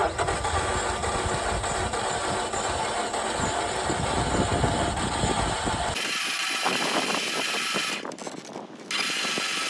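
2.4 MultiAir four-cylinder engine turning over on the starter while the MultiAir valve is held pressed to bleed the oil-pressure system in a crank-no-start case. About six seconds in, the sound cuts abruptly to a thinner, hissier noise.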